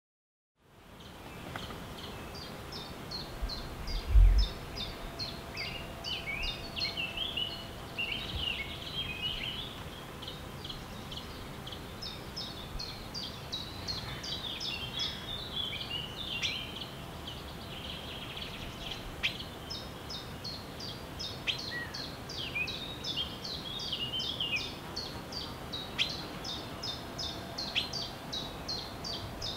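Forest ambience with several songbirds singing and chirping together, many quick repeated descending notes over a steady background hiss, fading in just after the start. A single low thump about four seconds in.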